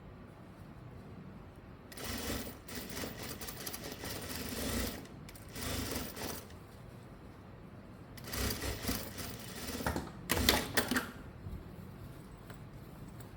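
Sewing machine stitching in four short runs of one to three seconds each, stopping briefly between them. The last run is the loudest.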